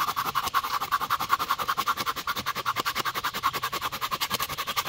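Silky Gomboy folding pull saw cutting the protruding ends of dry deadwood pegs flush with a wooden disc, the blade held flat against the wood: a fast, even rasping of quick back-and-forth strokes.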